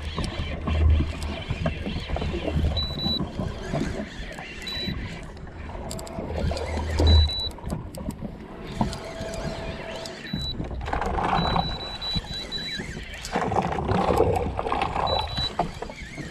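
Wind buffeting the microphone over open water, with low rumbling gusts and a broad rustling noise, and several short high-pitched beeps scattered through.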